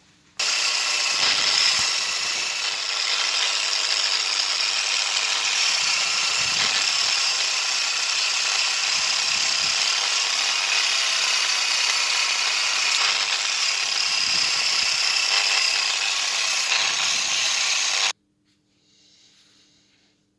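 Argon (TIG) welding arc on a cracked aluminium air-conditioning tube, a loud steady hiss that starts suddenly about half a second in and cuts off suddenly near the end.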